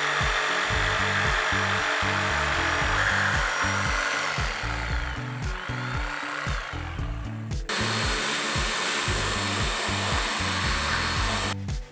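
DeWalt jigsaw cutting a curve through a wooden board, then stopping about two-thirds of the way in; a cordless drill with a drum sanding attachment then spins against the freshly cut curved edge, sanding it smooth, until shortly before the end.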